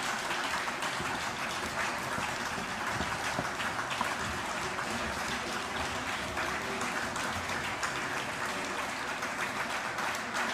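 Audience applauding, a steady round of clapping that goes on without a break.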